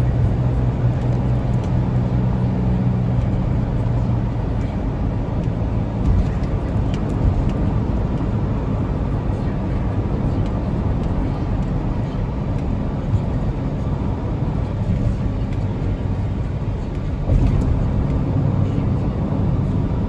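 Car cabin noise while driving: a steady low engine hum and road rumble from the tyres.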